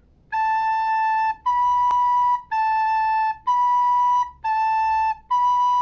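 Recorder (flauta dulce) playing six slow, even notes that alternate A and B three times, each held about a second with a short break between them, as a two-note practice exercise.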